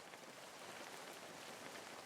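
Steady rain, quiet: an even hiss with a faint patter of individual drops.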